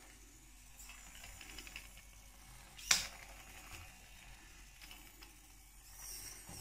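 Faint whir and clatter of a small robot car's two N20 metal gear motors driving its wheels over a laminate floor, with one sharp click about three seconds in. Near the end the robot is grabbed by hand.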